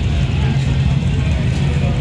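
Motorcycle engines running with a steady low rumble, with music playing over them.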